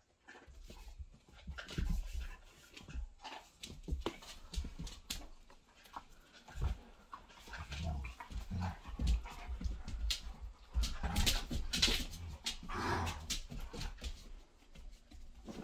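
A young German Shepherd and a grey short-haired dog play-fighting on a wooden floor: dog mouthing and panting noises, claws clicking and scrabbling on the boards, and repeated thumps, busiest and loudest in the second half.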